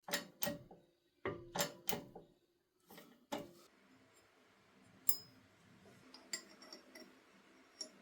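Copper hammer knocking on a freshly pressed crankshaft to set it straight: sharp metallic knocks with a short ring, two, then four, then two, followed by a few lighter taps.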